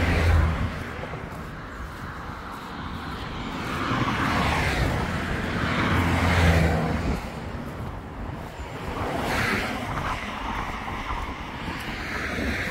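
Road traffic: four or five vehicles pass one after another, each swelling and fading, some with a low engine hum.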